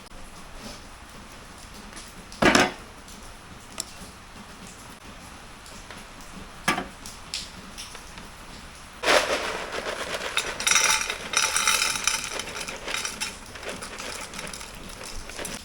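Kitchenware being handled: a loud knock, a smaller one a few seconds later, then a stretch of rattling and clinking metal, like pots and utensils clattering together.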